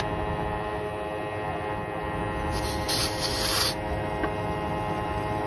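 Steady hum of a running car's engine bay with the air conditioning on maximum, several steady tones through it. About two and a half seconds in, a hiss lasting about a second as the refrigerant can is screwed onto the recharge hose's tap valve.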